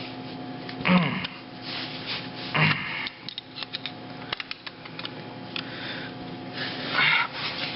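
Light metal clicks and taps from hand tools working on a motor part, with a few short breathy vocal sounds, over a steady hum.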